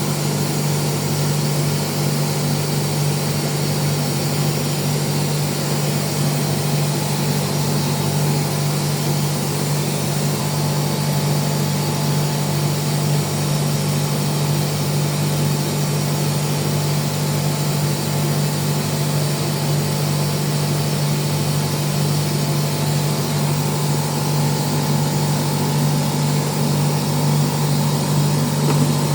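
Air compressor running steadily, a constant loud machine hum with no change in speed or load.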